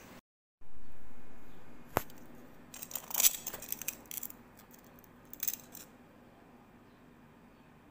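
Metal kitchen tongs clicking and scraping against crisp fried breaded chicken cutlets on a paper towel: one sharp click, then a flurry of clinks and crackles for about a second and a half, and a brief second flurry a couple of seconds later. Just before, a low dull rumble fades out over about a second.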